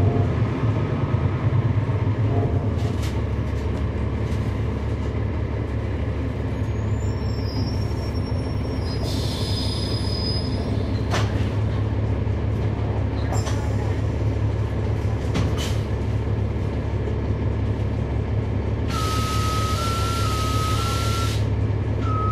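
Cummins ISL9 inline-six diesel engine of a 2011 NABI 416.15 transit bus running steadily, heard from on board. Short bursts of air hiss come about ten seconds in and again near the end.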